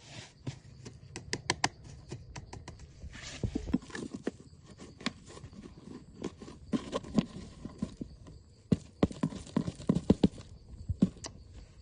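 Irregular sharp knocks and clicks, some coming in quick runs of several, with short pauses between them.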